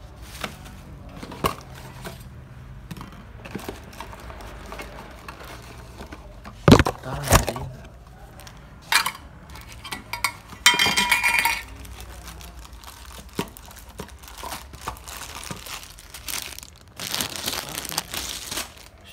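Plastic bubble wrap and small cardboard boxes being handled and crinkled, with irregular rustles, light knocks and clinks. Two louder knocks come about a third of the way in, and a longer crinkling stretch comes near the end.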